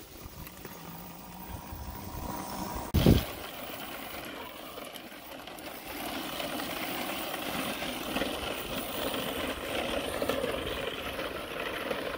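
Electric go kart driven by a car alternator converted into a motor, running along tarmac: a steady mix of motor and tyre noise that grows louder about six seconds in. There is one short thump about three seconds in.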